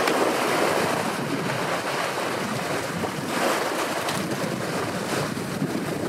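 Steady rush of wind and open-ocean waves.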